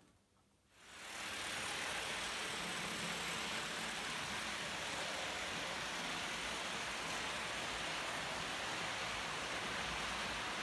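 H0 model trains running on a layout: a steady hiss of wheels on the track with motor noise. It fades in about a second in.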